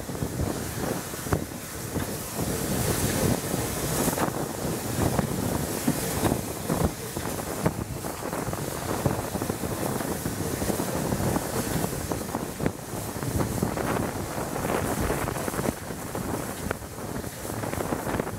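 Steam hissing from SR West Country Class steam locomotive 34027 Taw Valley as it moves slowly along the platform, mixed with wind rumbling on the microphone; no regular beat stands out.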